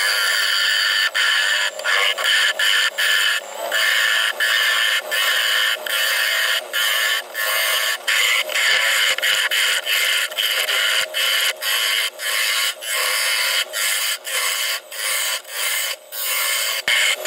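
Bowl gouge cutting into an olive ash bowl spinning on a wood lathe while the inside is hollowed: a scraping cut of wood shavings peeling off, in repeated short passes with brief gaps between them.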